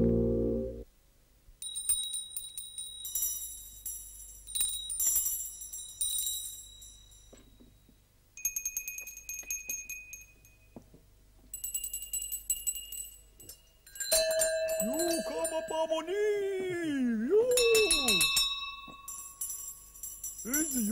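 Organ music ending in the first second, then a set of hand bells of different sizes, brass and porcelain, rung one after another, each ringing at its own pitch with the clapper rattling inside. Around the middle a voice slides up and down in pitch over a held bell tone.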